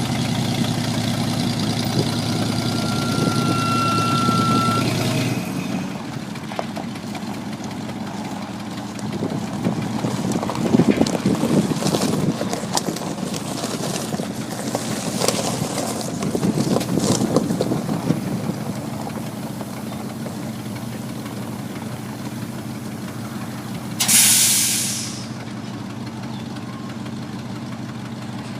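1979 Champion Spotter yard truck's Ford engine running at idle, louder for the first few seconds, with some rattling partway through. About 24 seconds in there is a sharp hiss of released air that fades over about a second, typical of the truck's air brakes.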